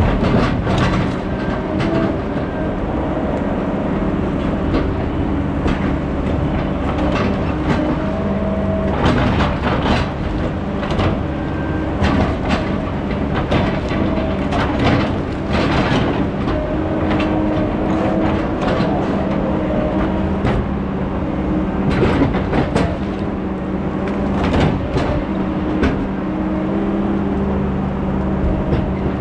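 Heavy logging machine's diesel engine running steadily under load, with repeated metallic clanks and knocks throughout.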